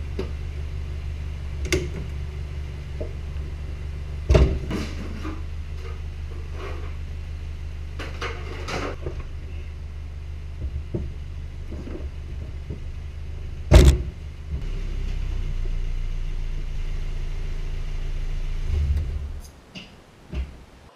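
Nissan S14's KA24DE inline-four idling steadily, with scattered clicks and clunks from the door and cabin and two sharp knocks, the louder about 14 seconds in. The engine is switched off near the end and its drone dies away.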